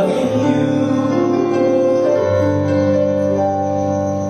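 Piano accompaniment playing held chords, with a chord change about two seconds in.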